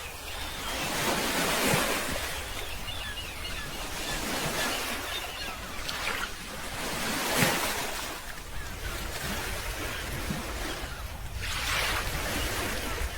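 Surf washing in and drawing back in surges every few seconds, with wind rumbling on the microphone.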